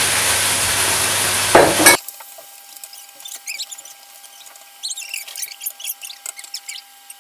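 Stir-fry sizzling loudly in a hot wok while a wooden spatula stirs it. About two seconds in the sizzle cuts off abruptly, leaving only faint scrapes and clicks of the spatula over a thin steady tone.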